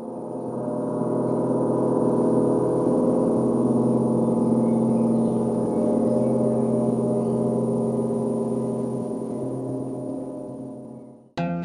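A long ringing drone made of many steady tones. It swells in over the first couple of seconds, holds, fades, and cuts off abruptly near the end.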